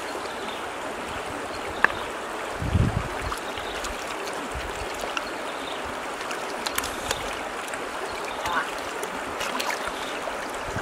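Shallow stream water running steadily over rocks, with small splashes and clicks from hands working through the water and stones. A low thump about three seconds in.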